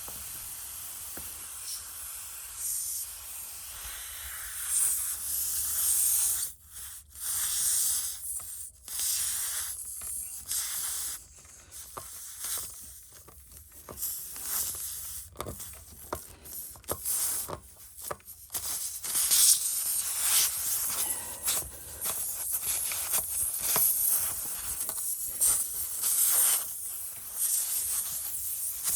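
Tire plug kit reamer being forced and twisted in and out of a truck tire's puncture, a rasping scrape that comes in irregular strokes with short pauses. The puncture runs through a steel belt, so the tool goes in hard.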